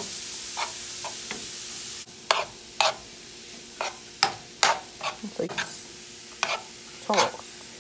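Cauliflower rice sizzling in a nonstick frying pan as it is stirred and tossed, a metal utensil scraping across the pan in short, irregular strokes about twice a second. The sizzle drops away sharply about two seconds in, leaving mostly the scrapes.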